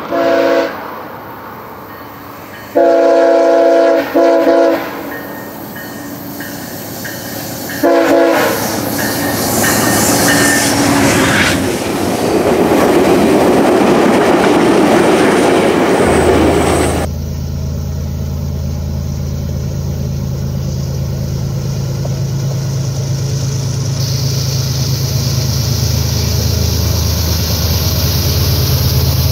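GE P42DC passenger locomotive sounding its multi-note horn in four blasts (short, long, short, short) as a warning to trespassers, then its train rushing past. About seventeen seconds in this gives way to a steady low drone of GE ES44AC and AC44C6M diesel freight locomotives hauling a slow intermodal train.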